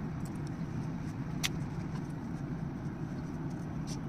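A vehicle running with a steady low rumble, with scattered light clicks and one sharper click about a second and a half in.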